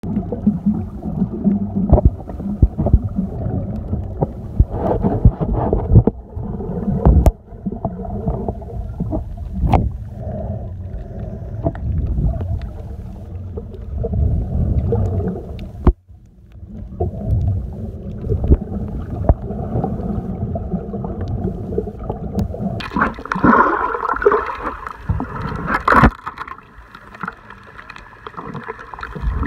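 Muffled water sounds while snorkeling: gurgling and sloshing that sit low, with frequent sharp knocks. About three quarters of the way through, the sound turns brighter and splashier.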